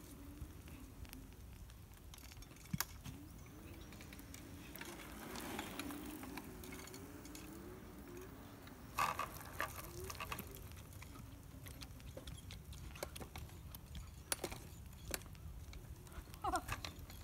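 Hoverboard kart's electric hub motors whining faintly, the pitch wavering as it speeds up and turns, with scattered clicks and knocks from the wheels and frame; one louder knock about halfway through.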